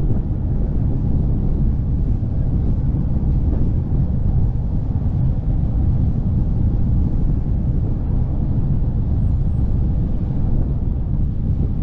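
Steady low rumble of wind on the microphone and rolling noise from a moving velomobile.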